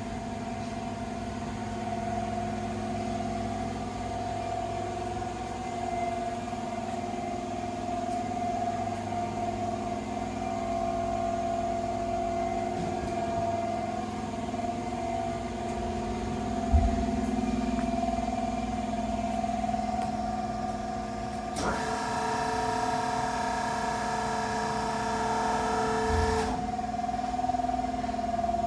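ELB SWBE 012 NPC-K hydraulic surface grinder running with a steady hum and whine from its motors and hydraulics. A low thump comes about 17 seconds in. A second, brighter whine joins about 22 seconds in and cuts off sharply about four and a half seconds later.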